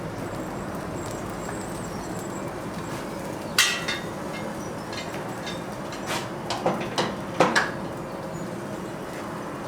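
Kitchen clatter over a steady background hiss: one sharp clink about three and a half seconds in, then a quick run of five or six knocks and clinks of utensils or dishes around six to seven and a half seconds in.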